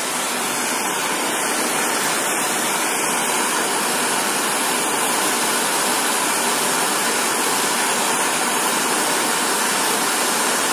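Ordinary gas blowtorch burning with a steady rushing hiss, its flame heating a copper pipe joint up to brazing temperature for silver solder.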